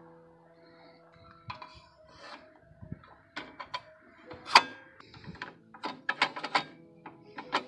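Clicks and knocks from the rip fence of a DeWalt FlexVolt table saw being handled and moved along its rail. The loudest knock falls a little past the middle, followed about a second later by a quick run of clicks.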